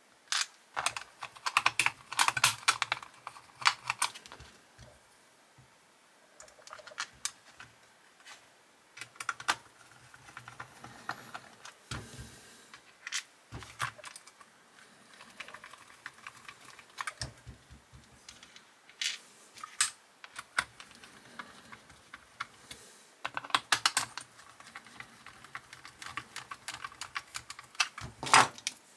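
Clicks and taps of the small plastic and metal parts of a Burago diecast model car being handled, pressed together and set down while it is reassembled by hand. They come in scattered flurries with short pauses between them.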